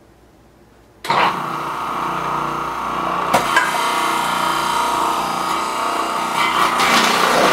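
Electric food processor switched on about a second in, its motor running steadily with the grating disc spinning as onion halves are pushed down the feed tube and shredded. There is a single sharp knock about three seconds in.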